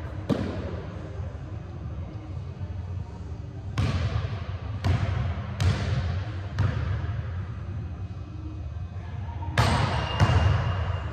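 A basketball bouncing on a hardwood gym floor: about seven separate thuds at uneven spacing, with two close together near the end. Each one echoes for a long time in the large hall.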